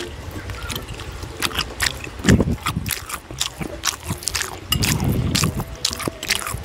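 Close-miked wet chewing and lip-smacking of a steamed siomai dumpling, a run of sticky mouth clicks and smacks. There are heavier, deeper mouth sounds about two seconds in and again around five seconds.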